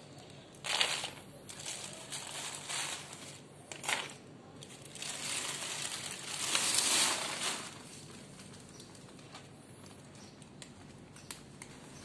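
Bursts of crinkling and crunching from dry cat food: the foam tray and plastic food bag being handled while kittens eat the kibble, loudest between about five and seven and a half seconds, then dying down to a low background.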